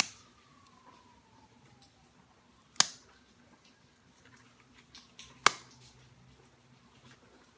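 Three sharp clicks a few seconds apart as a metal-tipped pressure-flaking tool snaps small flakes off the notch of a stone arrowhead during pressure notching.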